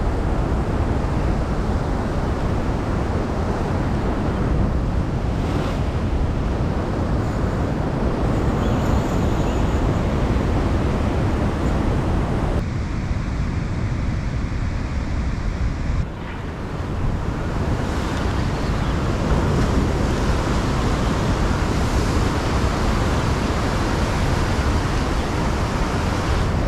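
Ocean swell surging and breaking as white water against a rock ledge, with wind buffeting the microphone. The sound turns thinner and quieter for a few seconds about halfway through.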